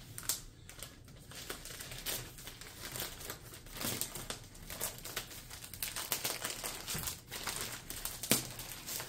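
Thin plastic bag crinkling and rustling in irregular crackles as hands pull it open and peel it back.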